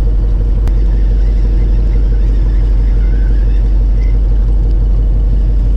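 Fishing boat's engine running steadily: a constant low drone with a steady hum.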